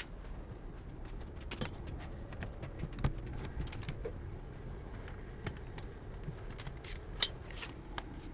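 Scattered, irregular clicks and light taps over a steady low hum, with a sharper knock about three seconds in and another near seven seconds.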